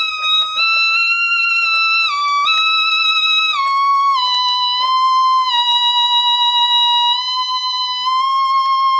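Otamatone Deluxe being played: one continuous electronic tone that steps down through several notes, then rises a little near the end.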